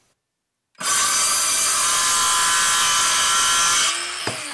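Hart 20V cordless 6½-inch circular saw, running on a 4Ah battery, starts abruptly just under a second in and cuts through a wooden board for about three seconds, then runs on more quietly once the blade is through. A single sharp knock comes near the end.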